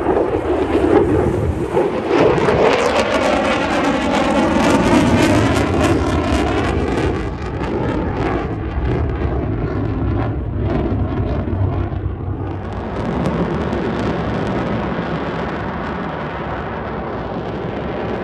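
Lockheed Martin F-35A Lightning II's single Pratt & Whitney F135 turbofan, loud jet noise as the fighter flies past and manoeuvres overhead. The noise has a slow wavering, phasing sweep through it, loudest in the first few seconds and easing slightly after.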